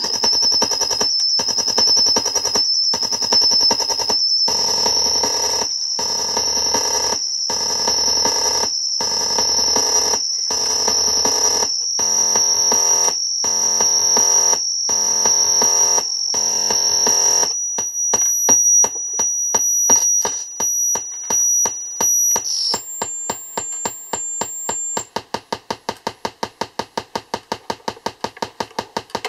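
Olegtron 4060 CMOS noise box (CD4060 oscillator/divider) putting out a harsh electronic buzz with a high whine, chopped into pulses about once a second as LEDs patched onto its outputs load the circuit, drop its voltage and change its frequency. About two-thirds of the way through it switches to a fast train of clicks over a thin high tone, which ends in sparser, quieter clicks.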